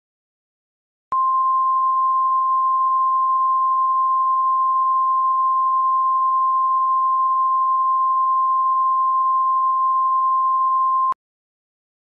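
Emergency Alert System attention tone: one steady, unwavering single-pitch tone that starts about a second in, holds for about ten seconds and cuts off abruptly, signalling that an emergency announcement is about to follow.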